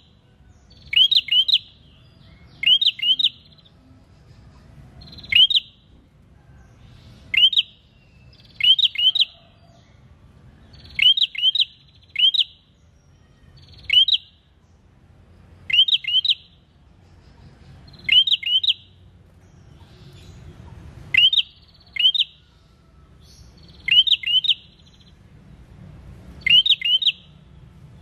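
Caged prenjak songbird calling persistently ('gacor'): short groups of one to three sharp, high notes that slur downward, repeated about every two seconds.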